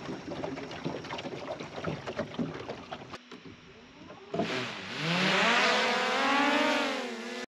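Knocks and clatter of gear being handled on a wooden boat's deck, then a small quadcopter drone's motors spin up about halfway through. Its propeller whine rises in pitch and wavers as it lifts off, louder than anything before it.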